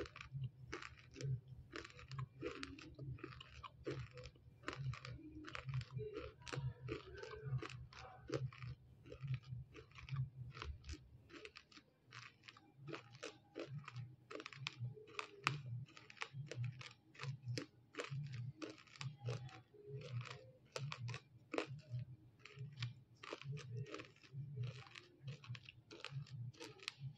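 Close-mouthed chewing of hard, crunchy roasted multani mitti (fuller's earth clay), a steady run of sharp crunches at about two to three a second over a low rhythmic chewing pulse.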